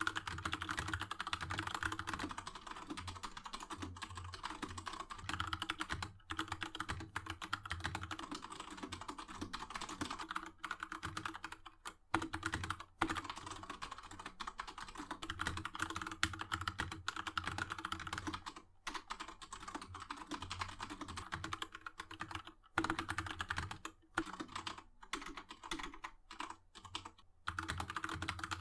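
Mechanical keyboard with brown tactile switches being typed on quickly and continuously, a dense clatter of key clicks broken by a few short pauses.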